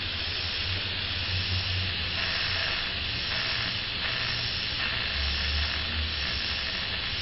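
SpikerBox bioamplifier's small speaker playing the amplified signal from pins in a cockroach leg: a steady static hiss over a low hum, with no distinct clicks standing out.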